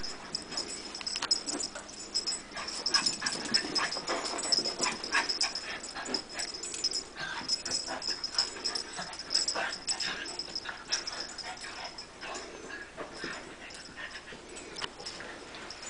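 Two small dogs play-fighting: a dense, irregular run of short sharp scuffling and mouthing sounds, quieter after about ten seconds.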